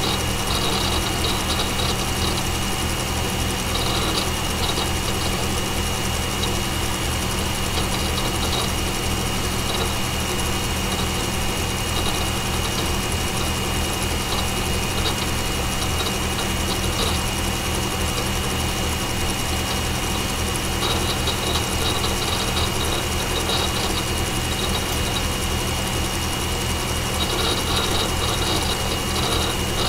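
Desktop PC running: the CPU, case and power-supply fans whir steadily under a thin, constant high whine. Every few seconds an IDE hard drive crunches in short runs of clicks, seeking on its platters while the operating system loads.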